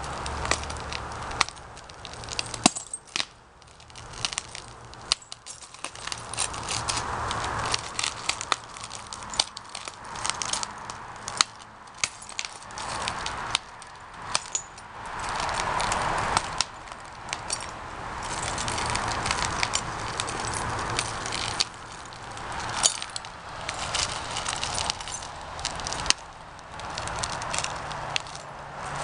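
Broken glass crunching and clinking under bare feet, in many small scattered clicks, over a soft hiss that swells and fades a few times.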